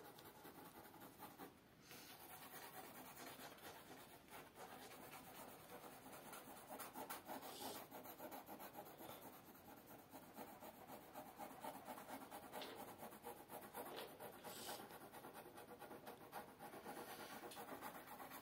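Faint scratching of a graphite pencil working over drawing paper, with a couple of sharper strokes along the way.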